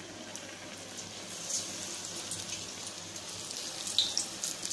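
Battered cauliflower florets deep-frying in hot oil: a steady sizzle with scattered crackles, louder and busier near the end.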